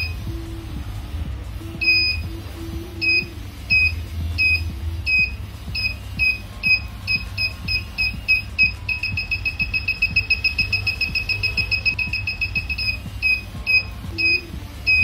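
Electronic beeper of an ultrasonic obstacle-sensing glove for the blind, a high beep repeating about once a second at first, then quickening to a rapid stream of beeps in the middle as the glove nears an obstacle, and slowing again near the end. The faster the beeps, the closer the obstacle. Background music plays underneath.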